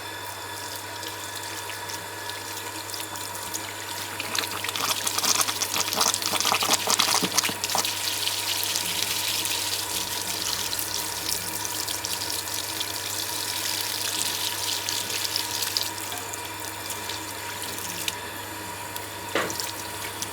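Running water splashing over a car AC blower fan as the shampoo and dust are rinsed off. The flow picks up about four seconds in, splashes hardest for a few seconds, then runs steadier and eases off well before the end, over a steady low hum.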